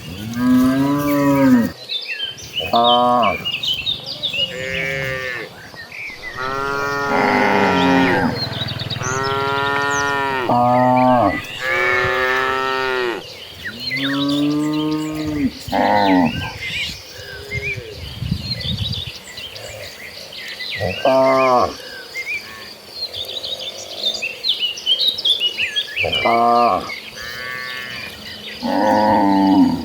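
A herd of cattle mooing: a dozen or so long, drawn-out calls, several overlapping in the middle stretch and sparser later, with faint high chirping behind them.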